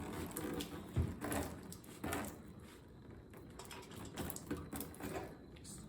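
A few light knocks, clicks and scrapes of metal being handled around an upturned big block Chevy engine on its engine stand, louder in the first two seconds.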